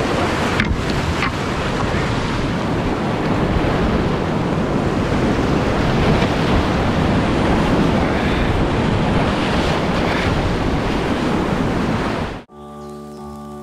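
River rapids rushing, with wind noise on the microphone. About a second before the end the sound cuts off abruptly, and soft music with held notes takes over.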